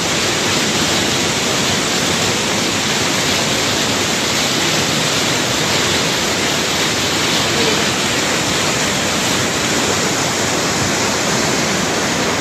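Floodwater rushing in a steady, loud, unbroken torrent down a street.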